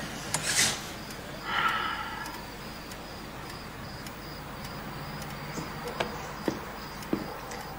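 A person's sharp breath about half a second in, then a short voiced sigh, from an actor in an emotional film scene; after that only faint background noise with a low hum and a few soft clicks.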